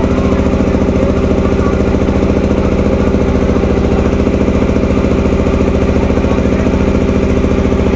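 River ferry launch's engine running steadily at constant speed, with a rapid, even throb.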